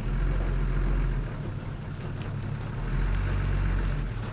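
Truck engine running steadily at low revs, swelling in loudness twice.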